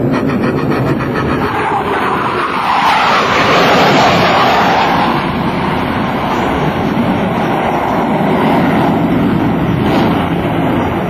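Boeing F/A-18 Hornet's twin General Electric F404 turbofans in afterburner through a tight high-g turn. The jet noise is loud throughout and swells to its loudest about four seconds in.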